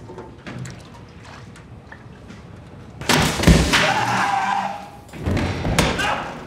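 Faint clicks, then two loud bouts of thudding and scraping about three and five seconds in, each lasting about a second, the first ending in a brief squealing scrape.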